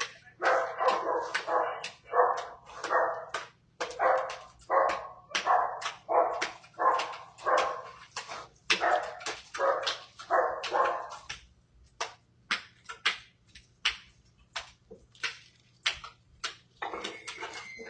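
A dog barking over and over, about two barks a second, stopping about eleven seconds in. Sharp clicks or knocks are heard throughout.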